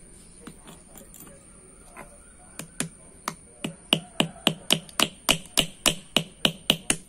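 Small steel hammer tapping rivets to fasten a new oversize lining onto a drum brake shoe: a few light taps, then from about two and a half seconds in a steady run of sharp metallic strikes, about four a second, with a slight ring.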